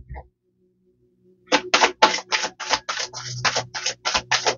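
Oracle card deck being shuffled by hand: after a short silence, a fast run of crisp card flicks, about five a second, starts about a second and a half in.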